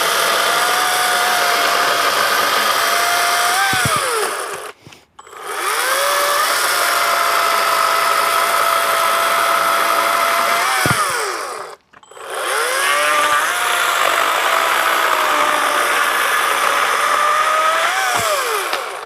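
Atlas cordless brushless battery chainsaw running in three separate bursts, each a steady electric whine that spins up, holds under the cut, then rises briefly and winds down when released.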